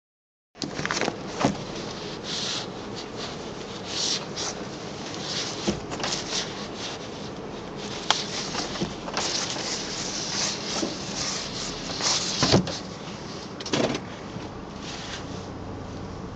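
Shiny PVC rain suit rustling and crinkling in irregular swishes as the wearer moves their arms, with a few sharp clicks, the crispest about eight seconds in.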